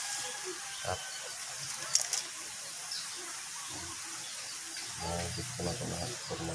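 Two sharp clicks close together about two seconds in, over a steady hiss. A faint high chirp repeats quickly and evenly from about the middle, and a voice murmurs briefly near the end.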